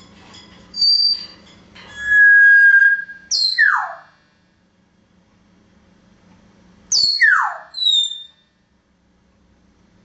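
African grey parrot whistling: a few short high notes, then a long steady note and a steep downward swoop, and a few seconds later another steep downward swoop followed by a short high note.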